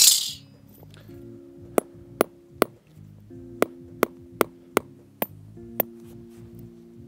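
Hammer blows driving a nail through a washer into the asphalt road surface: about nine sharp strikes, three quick ones, a pause, then six more. Background music with sustained chords plays under them, and a short loud hiss comes right at the start.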